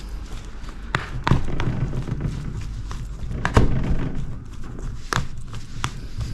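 A metal spoon mashing boiled potatoes in a plastic tub on a glass tabletop: irregular thuds and knocks, with a few sharper clicks.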